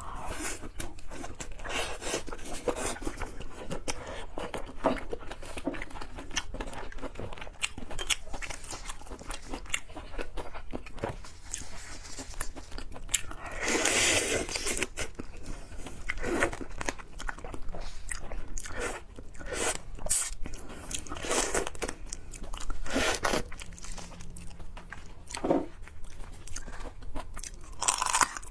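A person eating seafood: repeated crunchy bites and chewing, with a few louder crunches spread through.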